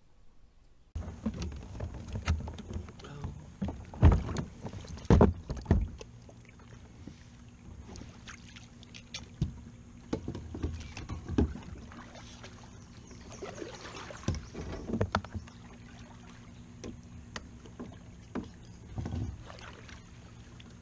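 Kayak paddle strokes working a grounded kayak loose: water splashing with irregular knocks and thumps, the loudest about four to six seconds in, and smaller bursts through the rest.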